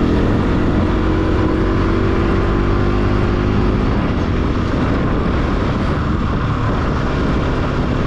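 Motorcycle engine running as the bike rides along, its pitch rising slowly over the first four seconds, then settling into a steady rumble of engine, wind and road noise.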